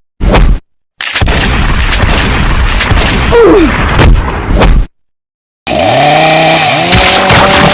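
Cartoon fight sound effects: a dense stretch of hits and crashes. After a brief silence, a motor starts, revving up in pitch and then running steadily.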